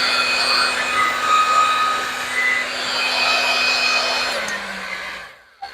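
Heat gun running on its high setting, a steady blowing noise with a motor hum, shrinking heat-shrink tubing. Near the end its pitch drops and it stops.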